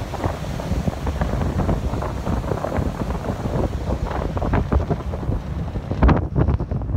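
Strong wind buffeting a phone's microphone: a loud, gusting rumble that swells and drops, with harder buffets about six seconds in.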